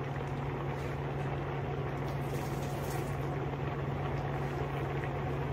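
Steady low hum and an even hiss of kitchen background noise, unchanging throughout.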